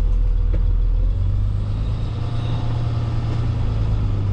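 Heavy tow truck engine running steadily while the truck is maneuvered slowly.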